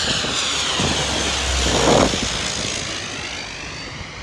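A twin-engine turboprop, the Australian Border Force's Dash 8, passing low overhead. The engine and propeller drone is loudest about two seconds in, then its pitch sweeps down and it fades as the aircraft flies away.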